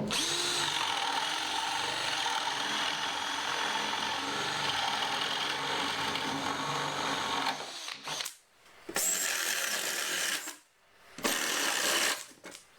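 Power drill boring 22 mm holes through 18 mm exterior plywood: one long run of about eight seconds, then two shorter runs of about a second each with brief pauses between.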